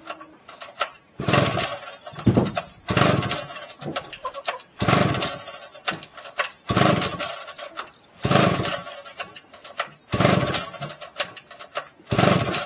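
Vintage Husqvarna two-stroke chainsaw being pull-started over and over: the recoil starter cord is yanked about every two seconds, each pull cranking the engine for about a second, and it does not catch and keep running.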